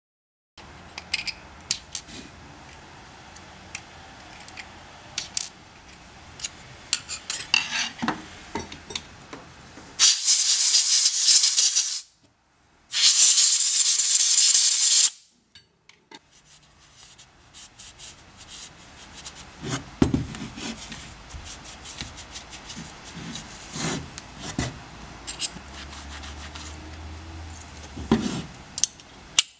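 Metal clinks and knocks from handling work at a Rems Unimat 75 thread-cutting machine, with two loud hisses of about two seconds each, about ten and thirteen seconds in.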